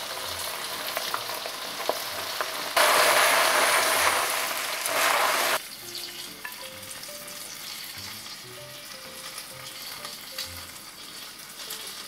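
One-pot pasta with sausages and mushrooms sizzling in its pot, the sizzle becoming much louder about three seconds in and cutting off abruptly just past the middle. After that, quiet background music with a few soft, sparse notes.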